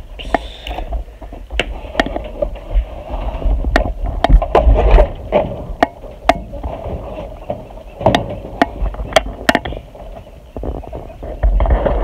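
Irregular clicks and knocks over a low rumble: handling noise from a handheld phone being moved about.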